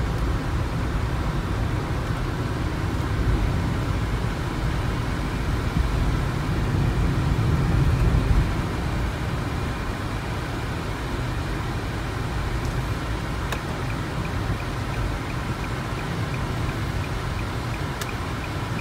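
In-cabin driving noise of a 2009 Nissan Tiida under way: steady engine and tyre-on-road noise, swelling a little about six to eight seconds in. A faint regular ticking sets in about two-thirds of the way through.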